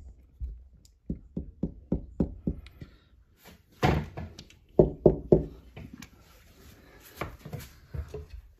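A series of knocks and thuds against a sliding window and its frame. First comes a run of quick taps, about four a second, then a few louder thumps in the middle and toward the end.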